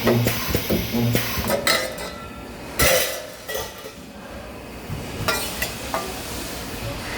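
Sheet-metal parts clanking and clinking at a spot-welding station, with two short low electrical hums from the spot welder in the first second and a half, and a loud metallic strike about three seconds in.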